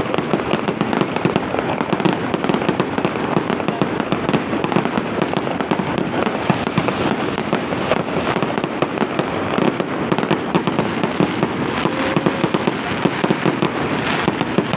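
Fireworks going off in a dense, continuous barrage: many bangs and crackles a second with no pause.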